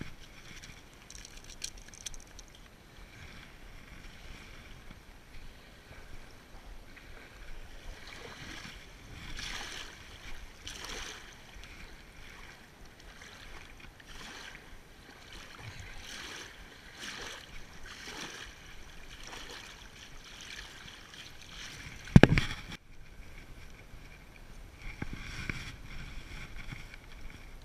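Small waves washing onto a gravel riverbank in a soft, steady rhythm, a wash about every second. A single loud thump a little over 20 seconds in.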